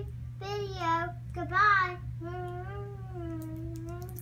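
A young girl singing in a high voice: two short sung phrases, the second the loudest, then one long drawn-out note of about two seconds that fades out near the end.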